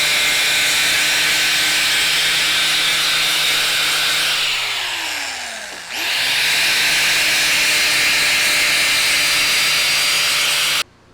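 Handheld power tool working the metal mount: a loud, steady motor whine that starts suddenly, slows and drops in pitch about four to six seconds in, speeds back up, and cuts off near the end.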